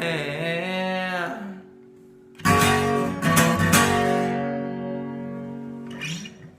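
Song ending on acoustic guitar: a held, wavering sung note over a ringing chord fades out, then after a short pause the guitar is strummed a few more times on a final chord that rings out and dies away.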